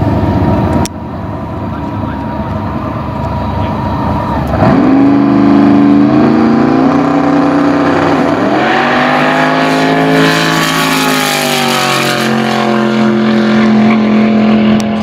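The 1600-hp twin-turbo V8 of a drag-racing Fiat Topolino running rough at idle on the start line. About four and a half seconds in it is revved up in steps, and a few seconds later it launches at full throttle, its pitch climbing and then falling away as the car goes off down the strip.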